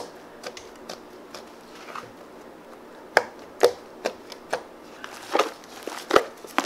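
Fluffy slime being poked with fingertips and then squeezed in both hands, giving irregular sharp clicks and pops that come thicker and louder in the second half.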